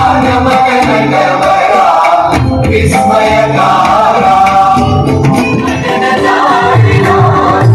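Singing with instrumental accompaniment, continuous and loud: music of a Konkan naman folk-theatre performance.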